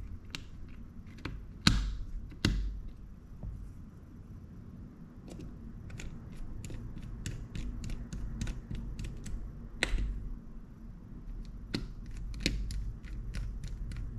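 Small clicks and taps of a Shimano Cardiff 401A baitcasting reel's parts and small tools being handled during reassembly, with three louder knocks, two near the start and one about ten seconds in, over a low steady hum.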